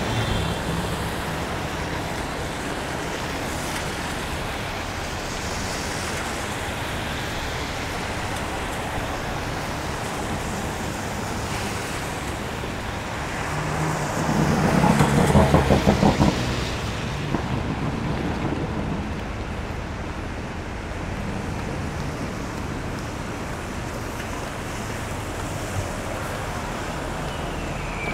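City street traffic: a steady wash of passing cars, with one louder vehicle engine rumbling past about halfway through.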